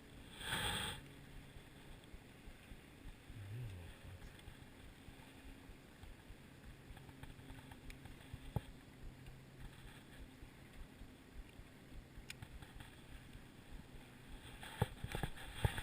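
Quiet ambience in a small fishing boat: a faint steady low hum, a brief rustle near the start, and a few sharp knocks or clicks of gear against the boat toward the end.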